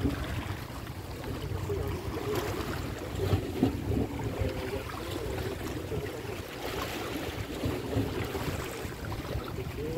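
Wind blowing on a phone's microphone at the seashore, a steady low rumble with the wash of the sea beneath it and a few brief louder gusts.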